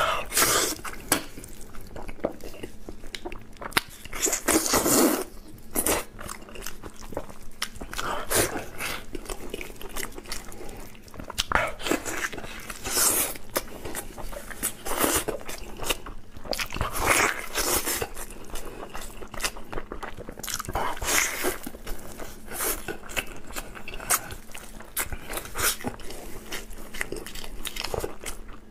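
A man biting and chewing a soy-braised pork hock, picked up close by a clip-on microphone, in irregular bursts of mouthfuls.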